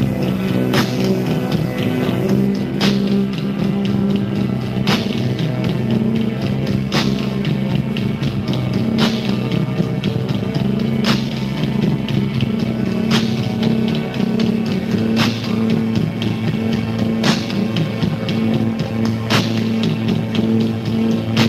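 Live rock band performance, an instrumental passage without singing: sustained low chords held under a sharp drum hit about every two seconds.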